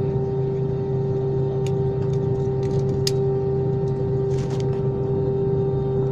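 Steady drone of a jet airliner's engines heard from inside the cabin as the plane taxis, with a constant hum tone over it. A couple of faint clicks and a short hiss come through partway in.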